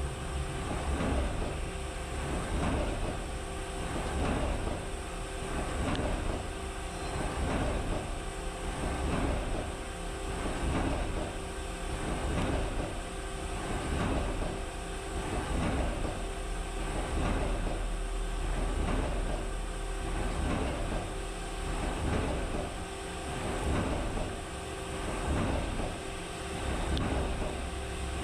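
Mazak Integrex mill-turn shape-broaching a square hardy hole in a metal anvil, the tool cutting in repeated strokes about every second and a half over the machine's steady hum.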